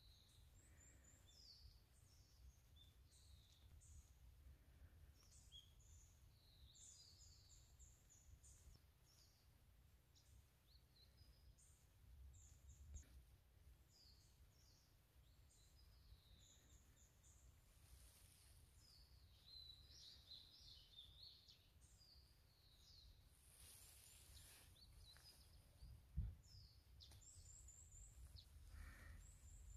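Faint chorus of small birds, many short, high chirps scattered throughout, over a low rumble. A single thump near the end.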